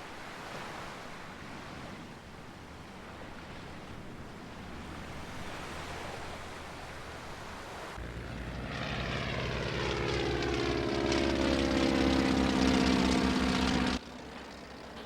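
Propeller aircraft engine drone passing by over a soft steady hiss. It comes in about eight seconds in, grows louder with its pitch falling as it passes, then cuts off abruptly near the end.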